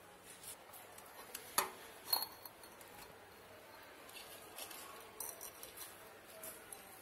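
Light metallic clinks from a stainless steel plate being handled: two sharper clinks about a second and a half and two seconds in, then a few faint ticks around five seconds.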